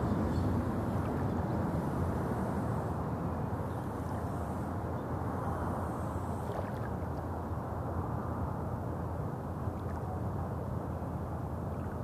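Steady low rumble of road traffic from a nearby road, easing slightly over the first few seconds, over the faint lapping of calm lake water on a pebble shore.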